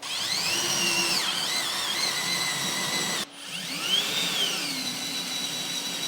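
Power drill running a long bit down through the truck bed floor and the hat channel beneath it, in two runs with a brief stop about three seconds in. The motor's whine rises and falls as the trigger speed changes.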